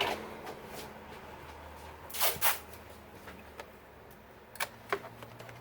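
Light handling noises on a laptop being worked on: a couple of short rustling scrapes about two seconds in, then two small clicks near the end, over a low steady hum.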